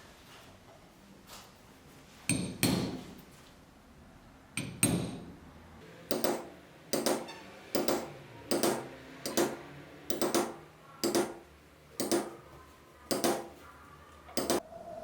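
Hammer blows with a short ring after each: two doubled blows, then a steady run of about ten strikes, roughly one a second.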